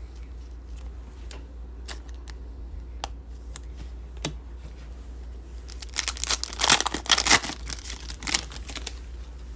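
Trading-card pack wrapper being torn open and crinkled: a few light clicks of card handling, then about six seconds in a loud crackling tear lasting a second or two.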